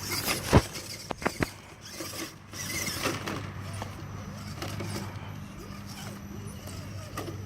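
Axial SCX10 Honcho RC rock crawler's small electric motor and gearbox running steadily at low speed as it crawls over rocks, with a few sharp clicks and knocks in the first second and a half.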